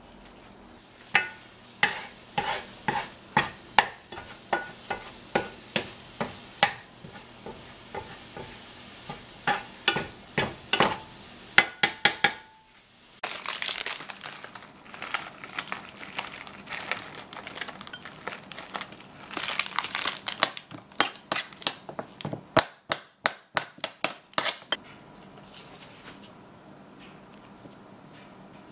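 Kitchen cooking sounds: a utensil clinking against cookware in quick, evenly spaced taps of about two a second, then a stretch of stirring and scraping, then another quick run of clinks.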